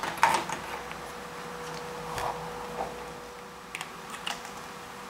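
Handling clicks as a small circuit board is picked up, then short sharp snips about four seconds in as small side cutters trim the LED leads.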